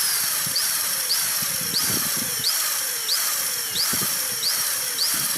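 Electric drill boring through a broken steel bolt in a cylinder head, running steadily under load with a pitch that dips and recovers about every half second; the bit is close to breaking through the bolt.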